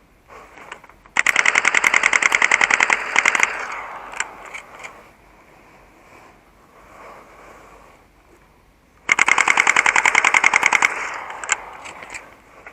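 Airsoft gun firing two long full-auto bursts of rapid, evenly spaced shots, the first about a second in and the second near the end, each followed by a few single shots.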